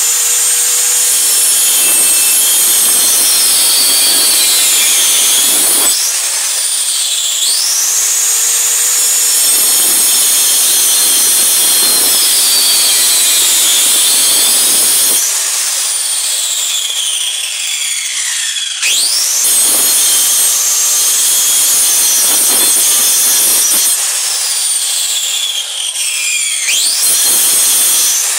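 Handheld electric circular saw cutting a wooden board in several passes. Its high, loud motor whine sags in pitch as the blade bites into the wood and climbs back up each time it runs free, about four times.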